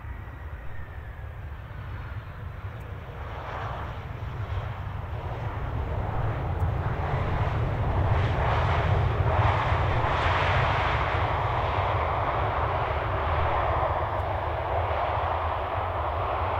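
Boeing 737-300F's turbofan engines on the landing roll, building from about three seconds in to a loud, steady rushing roar that holds to the end: reverse thrust being applied after touchdown on a wet runway.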